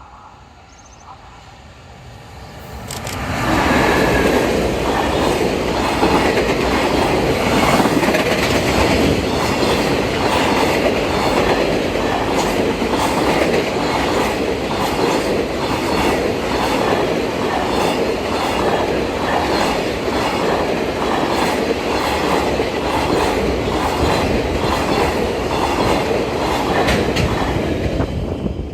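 Freight train hauled by an EF210 electric locomotive passing at speed. Its noise swells in about three seconds in, then holds as a steady clickety-clack of wagon wheels over rail joints, about one and a half knocks a second.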